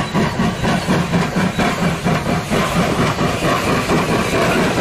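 Steam locomotive chugging at a fast, even rhythm.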